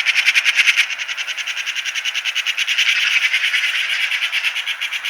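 A steady, rapid chirring trill of an animal call, about ten pulses a second and fairly high-pitched.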